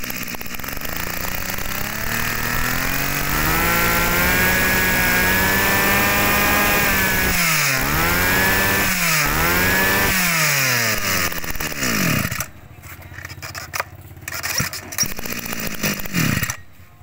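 Komatsu Zenoah BC2300 23cc two-stroke brush cutter engine being revved. The pitch climbs over the first few seconds to high revs and holds there, drops sharply and recovers twice, then falls back to a much quieter idle about twelve seconds in. It blips up and down once more near the end.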